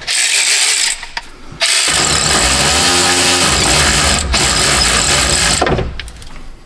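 Cordless drill/driver whirring as it runs in the excavator's floor-panel bolts: a short run at the start, then a longer run of about four seconds.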